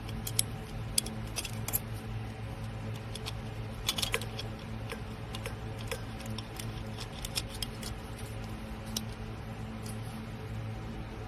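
Light clicks and taps from a stainless steel tea kettle being handled, scattered through the stretch with a cluster of sharper ones about four seconds in, over a steady low hum.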